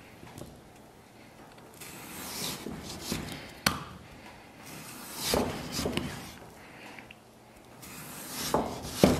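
A Chinese cleaver slicing through stiff, dried-out pork belly on a wooden chopping block: three slow rasping strokes of the blade through the meat, each ending in a sharp knock as it meets the wood, the last knock the loudest.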